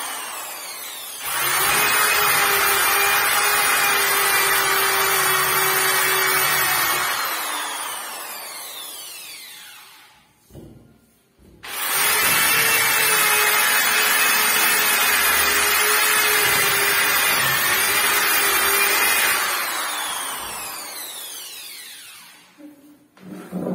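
Handheld electric sander running against a painted wooden door, switched on about a second in and again near the middle, each time running steadily with a high whine for six or seven seconds, then let go and spinning down with a falling whine over a few seconds.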